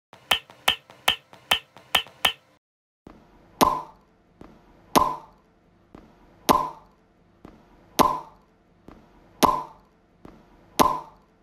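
Editing sound effects: a quick run of six sharp clicks, then six louder sharp hits with a short ringing tail, evenly spaced about a second and a half apart.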